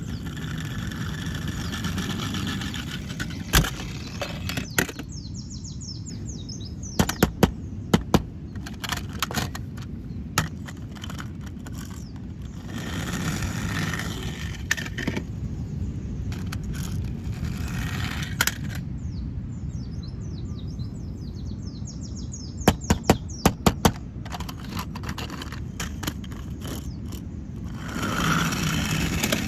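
Sharp clicks and knocks, some single and some in quick clusters of three or four, over a steady low background rumble, with bursts of hissy rustling and faint bird chirps.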